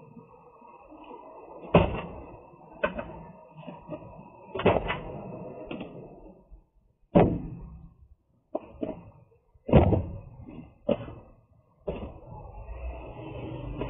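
Taped cardboard boxes being set down and stacked on a truck's steel diamond-plate floor: a series of about eight thuds and knocks at irregular intervals, with handling noise between them.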